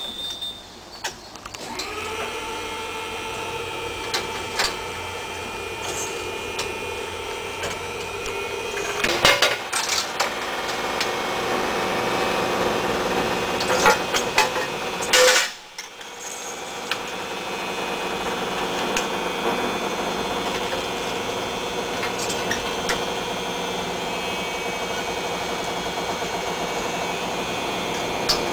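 Electric train machinery of a vintage Sóller railway carriage running with a steady whine of several fixed tones, with sharp metallic clicks and knocks now and then. The sound drops out briefly about halfway, then resumes.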